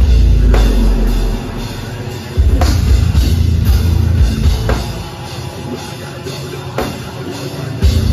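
A deathcore band playing live through a concert PA: drums, bass and guitar at full volume with a heavy low end, and a big accented hit about every two seconds.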